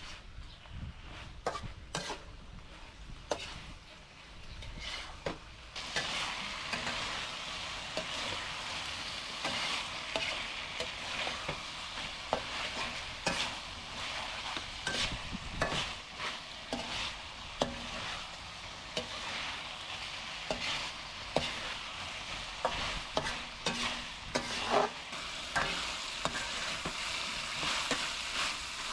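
Food frying in hot oil in a pan, being stirred with a utensil that clicks and scrapes against the pan. The sizzling starts about six seconds in and continues steadily under frequent utensil clicks.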